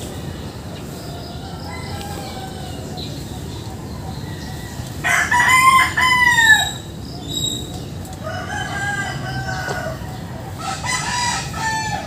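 Roosters crowing: one loud crow about halfway through, with a brief break in the middle, and several fainter crows before and after it.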